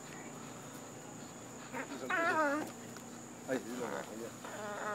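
Pit bull whining in short wavering cries while clamped onto a hanging tire, once about two seconds in and again in the last second or so.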